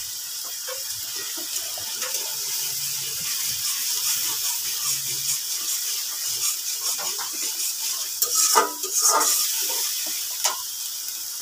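Poppy-seed and onion spice paste sizzling in a metal wok on a gas burner while a metal spatula stirs it, being stir-fried down. Light scrapes and taps of the spatula against the pan, with a few louder scrapes about eight to nine seconds in and one more near the end.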